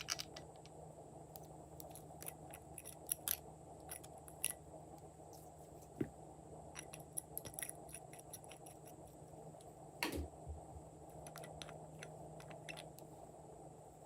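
Glossy slime being squished and worked by hand, giving faint, scattered sticky clicks and small pops, with one louder pop about ten seconds in.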